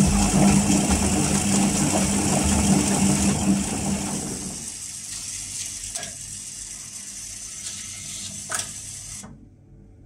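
Arctic L800TA washing machine running, its motor driving the drum through the belt and pulley with a steady hum and a hiss. About four and a half seconds in, the hum drops away, leaving a quieter hiss with a couple of clicks that cuts off near the end.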